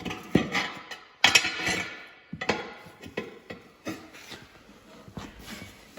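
Steel tire bars clanking and scraping against the steel rim of an implement tire as a tight bead is levered on by hand. Two hard strikes in the first second and a half, the second ringing on briefly, then a run of lighter knocks.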